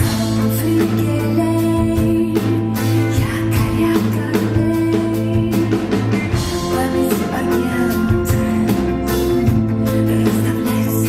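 A rock band playing: guitar over bass and a drum kit, with sustained chords and a steady drum beat.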